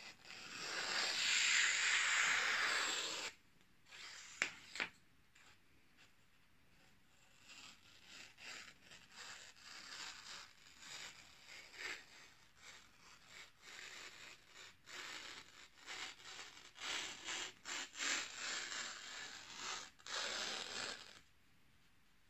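A sheet of paper scraping and rustling against a steel axe head as it is pressed around the blade. A loud steady rush comes first, two sharp clicks follow about four and a half seconds in, then uneven bursts of scraping go on until near the end.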